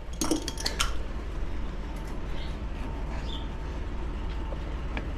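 A quick run of sharp metallic clinks and clatter in the first second, from hand tools working a stubborn hose fitting, then a steady low hum of barn machinery.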